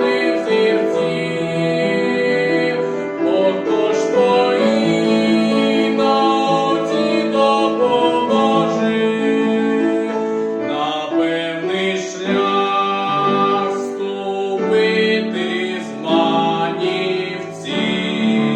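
A male singer singing a Ukrainian art song with piano accompaniment.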